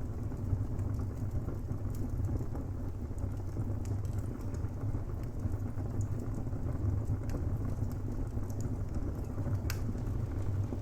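Wood fire burning in a fireplace: a steady low rumble under frequent small crackles and snaps of burning timber, with one sharper pop near the end.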